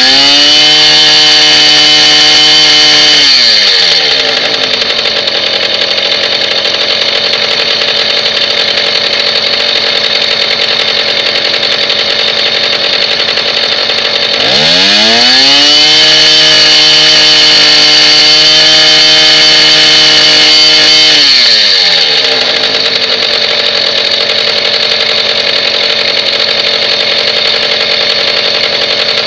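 Stella moped's engine revved twice: held high at about 4,250 rpm for about three seconds, then dropping back to a steady idle near 2,700 rpm. About fifteen seconds in, it revs up again, holds high for about six seconds, and falls back to idle.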